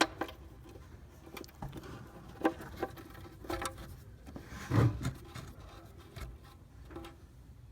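Scattered faint clicks and light knocks of a drain bolt and hand tools being handled and fitted, with one duller, louder knock about five seconds in.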